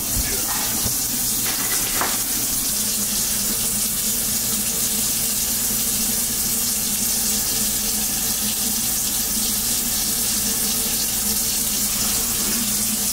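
Kitchen tap running steadily: an even, unbroken rush of water.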